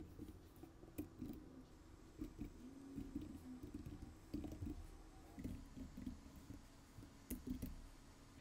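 Quiet, irregular keystrokes on a computer keyboard as code is typed.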